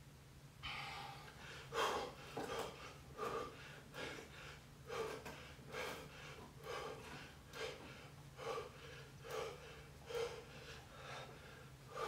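A man breathing hard from exertion during bodyweight exercise, with short, sharp breaths coming about once a second in a steady rhythm.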